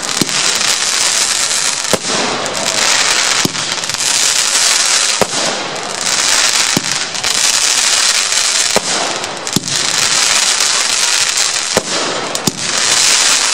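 Weco Coroner firework battery firing shot after shot: a sharp bang about every one and a half to two seconds, each followed by a long hissing crackle of stars.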